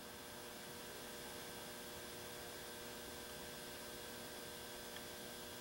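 Quiet room tone: a faint, steady electrical hum with hiss, unchanging throughout.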